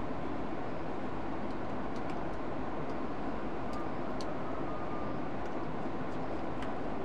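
Steady background rumble with a few faint small clicks and no voices.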